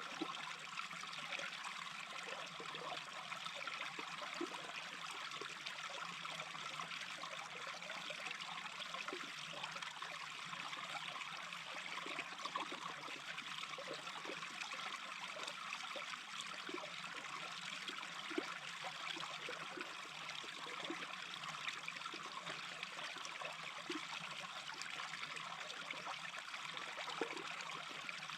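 Small brook babbling steadily, a continuous rushing trickle dotted with many small plops and gurgles.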